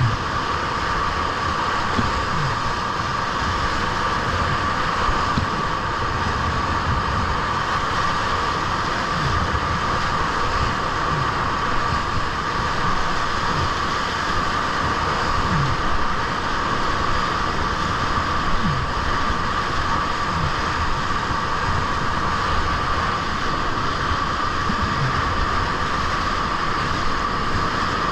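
Steady rush of whitewater foaming around a kayak surfing a river wave, close to a camera mounted on the boat, with short low whooshes every few seconds.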